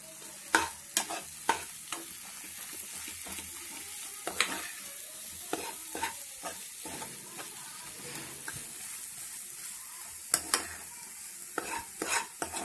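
Scrambled eggs with spice masala frying in a kadai, sizzling steadily while a steel spoon stirs them. The spoon scrapes and clacks sharply against the pan, a few times in the first two seconds and several times near the end.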